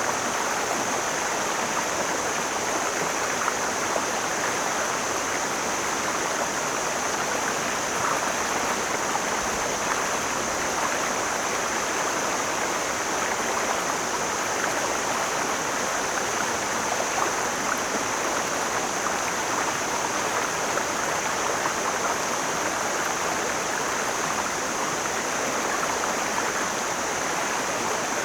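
Mountain stream flowing, a steady unbroken rush of water, with a constant high-pitched hiss above it.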